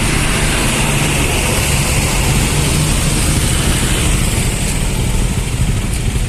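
Tour bus diesel engine running at close range, a steady low rumble with a noisy hiss over it.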